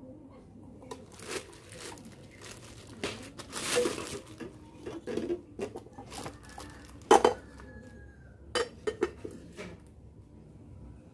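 Baby Safe LB007 slow cooker's white inner pot and glass lid being handled, giving a series of clinks and knocks against the cooker body, the loudest about seven seconds in and a quick run of them near the end. A short crinkle of plastic packaging around four seconds in.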